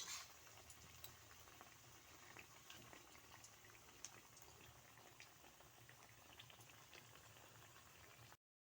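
Near silence: faint room tone with a low hum and scattered tiny crackles and ticks, then the sound cuts off near the end.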